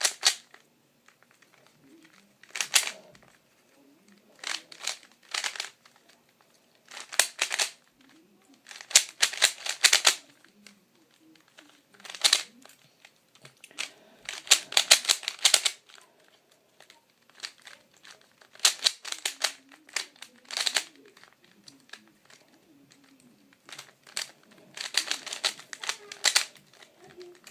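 A DaYan speed cube's layers clicking and rattling as they are turned in quick bursts of moves, with short pauses between bursts.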